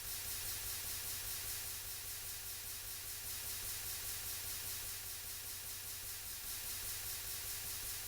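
Steady hiss with a faint low hum underneath and no distinct events.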